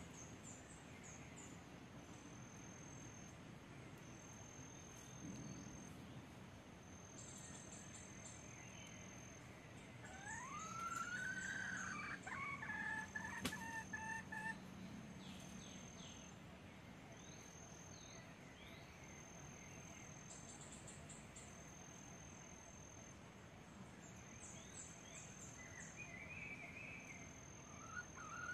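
Red junglefowl rooster crowing once about ten seconds in, a rising note that breaks into shorter clipped notes, with another crow starting near the end. Behind it a high, steady chirring note repeats on and off.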